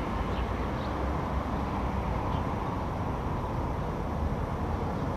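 Steady low outdoor background rumble, with a few faint, brief high-pitched calls from swifts flying around.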